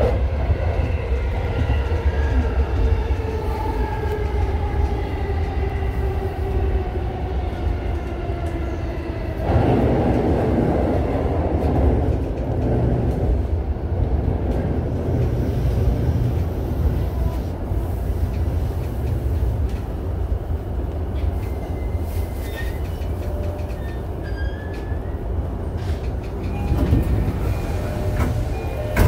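Inside an electric commuter train slowing to a stop: the traction motors whine in several tones that fall steadily in pitch, under a constant low rumble of wheels on track. About ten seconds in a louder rush of noise comes in, after which the low running noise carries on.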